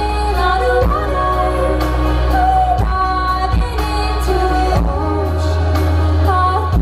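Live pop concert music: a woman singing a held melody over heavy bass and a drum hit about once a second, recorded from the audience with poor sound.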